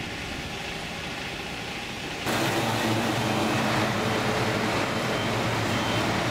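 Road traffic passing as a motorhome drives by. About two seconds in, the sound switches abruptly to louder, heavier traffic: the low steady hum of truck and bus engines.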